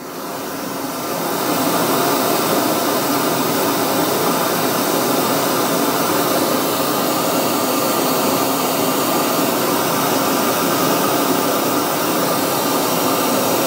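Pink noise test signal played through a full-range PA loudspeaker, with little below about 100 Hz because the crossover high-passes the full-range speaker at 111 Hz. It rises over the first second or two, then holds steady and loud.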